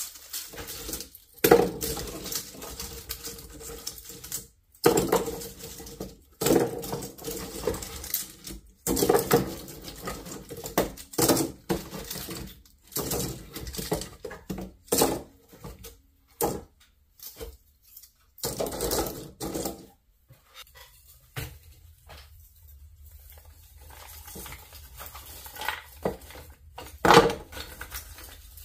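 Hard objects clattering and knocking as they are handled and set down, in irregular clusters with short gaps, and a quieter stretch about two-thirds of the way through.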